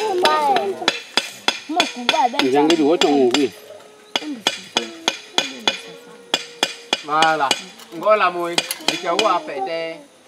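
A knife scraping the skin of a boiled brush-tailed porcupine in short, regular strokes, about three a second, each a sharp click.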